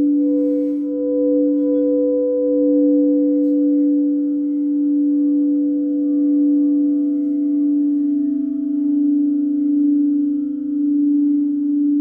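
Singing bowl ringing in a long sustained tone, its sound swelling and fading in slow waves, with a second, higher tone joining about halfway through.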